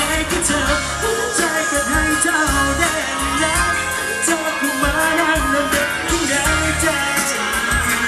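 Male singer singing a Thai pop-rock song live into a handheld microphone, amplified through the stage PA over band accompaniment with a steady drum beat.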